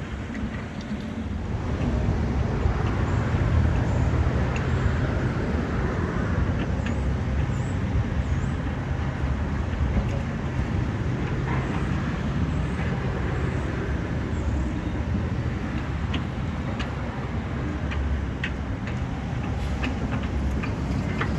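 Diesel engine of heavy demolition machinery running steadily, getting louder about two seconds in, with scattered light clanks and clicks over the rumble.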